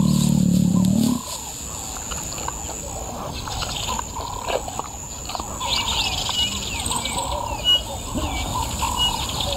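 Savanna bush ambience: many small birds chirping and whistling over a steady high-pitched whine. A low, growl-like rumble stops about a second in.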